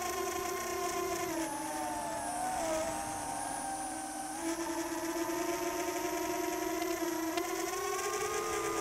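Brushless motors and propellers of an FPV quadcopter whining in flight, the pitch following the throttle: it dips about a second and a half in, climbs back about four and a half seconds in, and glides up and then down near the end.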